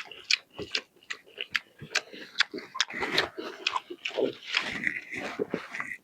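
A person chewing food close to the microphone, with a quick run of wet mouth smacks and clicks, several a second.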